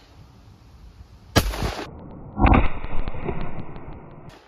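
Two .410 magnum shotgun shots about a second apart, the second trailing off in a long echo.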